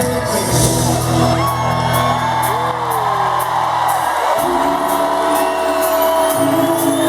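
Live rock band playing loudly through a concert PA, with held bass notes that change about four and six seconds in and gliding pitched lines above. Whoops from the crowd run through it.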